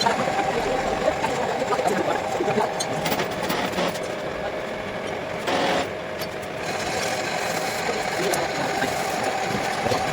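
A machine tool running steadily, with a constant hum and scattered clicks, and a brief louder burst of noise about five and a half seconds in.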